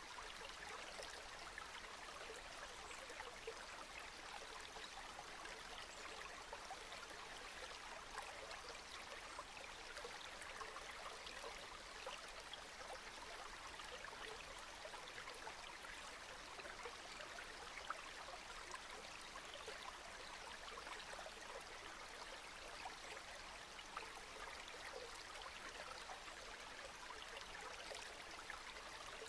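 Steady rain falling, an even hiss of drops with a few slightly louder single drops now and then.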